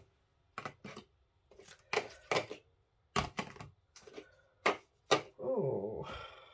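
A run of about ten sharp plastic clicks and taps as craft ink-pad cases are picked up and handled on the desk, with a brief hum from a voice near the end.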